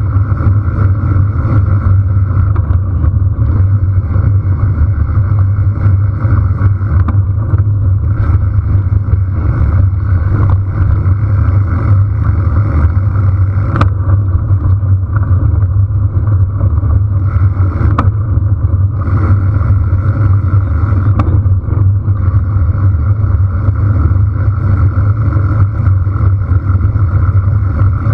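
Riding noise picked up by a camera mounted on a mountain bike: a loud, steady low rumble of wind buffeting the microphone and tyres rolling on a gravel dirt road, with a few sharp clicks from bumps, the first about halfway through.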